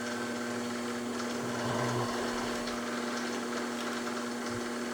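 Steady electric motor hum with a constant low tone that does not change.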